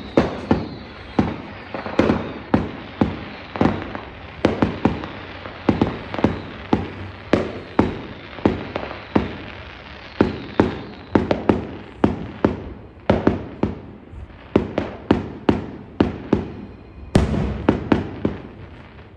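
Fireworks going off: an irregular string of sharp bangs, about two or three a second, each trailing off in an echo, with a dense run of louder bangs near the end.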